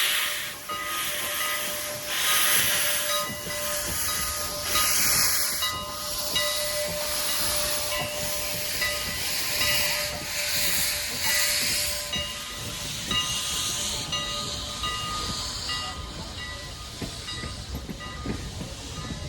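Mogul-type (2-6-0) steam locomotive working steam, giving off loud surges of hissing steam every one to two seconds, with a faint steady whine underneath. Toward the end the hiss surges weaken and a low rumble of the train comes up.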